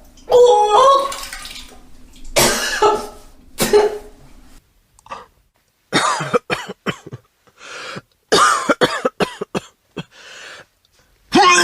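A person retching and vomiting: a series of voiced heaves and gags with silent gaps between them. There is one long heave at the start and two more a few seconds in, then two clusters of short, clipped gags, and a new loud heave begins right at the end.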